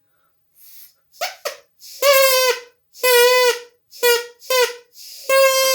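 Drinking-straw reed pipe, its flattened tip cut to a point to make a double reed, blown in a string of about seven buzzy honks. The honks are short or about half a second long, all on one steady pitch.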